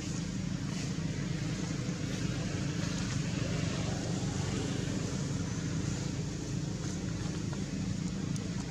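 A steady low motor hum, even throughout, with a few faint clicks.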